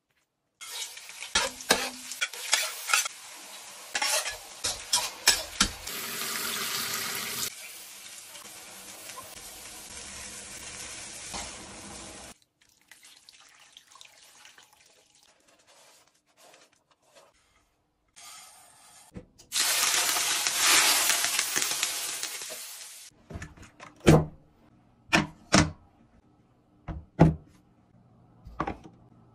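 Cooking sounds from a wok and steel tray: metal utensils clinking over frying and sizzling, then a long loud sizzle about twenty seconds in, followed by several separate sharp knocks near the end.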